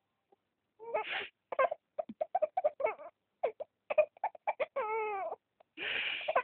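A sniffle, and a baby answering it with rapid, high-pitched giggles in short bursts several a second. About five seconds in he lets out one longer, wavering squeal. A second sniffle comes near the end, and the giggling starts again.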